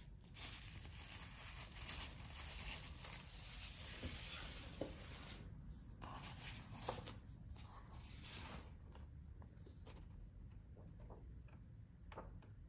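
Plastic wrapping on a set of printed engravings crinkling as it is handled for the first five seconds or so, then paper sheets and a booklet rustling as the pages are leafed through, with scattered small clicks and taps.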